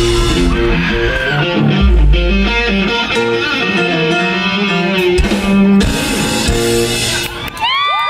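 Rock band playing through a passage at a soundcheck: electric guitar, bass and drums, with drum hits cutting through. Near the end the band drops out and a high held note rings on.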